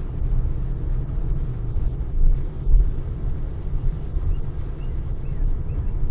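Steady low rumble of road and engine noise inside the cabin of a moving supercharged Pontiac Grand Prix GTP, swelling briefly a little under halfway through.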